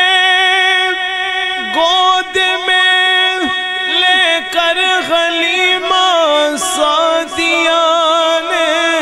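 A man singing a naat, drawing out a long wordless phrase. He holds notes with a wavering vibrato and glides between pitches.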